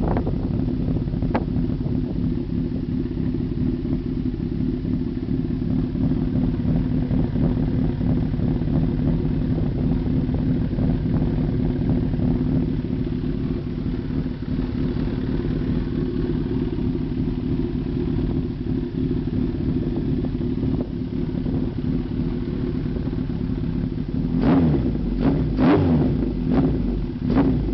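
Kawasaki Zephyr 1100's air-cooled inline-four idling steadily through an Ohnishi Heat Magic exhaust with a generic titanium silencer. Near the end the throttle is blipped several times in quick succession, each rev rising and dropping back to idle.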